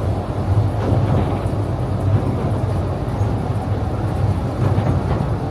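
Open-air tourist rail cart running along the track: a steady low rumble of its motor and wheels.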